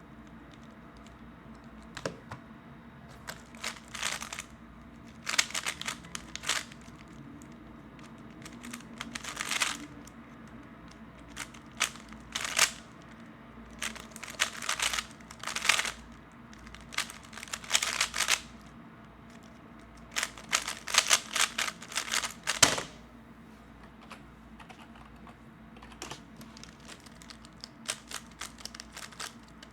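3x3 Rubik's cube being turned fast: bursts of rapid plastic clicking and clacking from the layer turns, broken by short pauses. A longer pause comes about three-quarters of the way through before lighter turning resumes.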